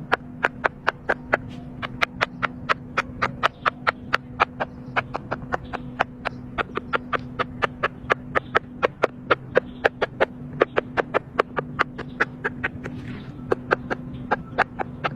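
Silicone pop-it fidget toy bubbles being pressed one after another, a rapid, even run of soft pops at about five a second.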